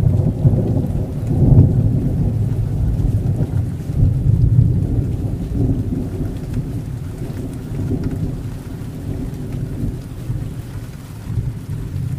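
Thunderstorm: thunder rumbling over steady rain, swelling about a second and a half and again about four and a half seconds in, then slowly dying away.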